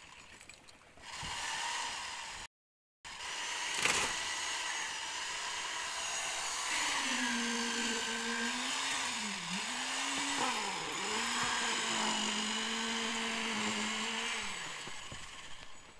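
Electric concrete needle vibrator running in freshly poured concrete, a steady motor whine with a high hiss. Its pitch dips briefly twice midway, and the sound fades out near the end.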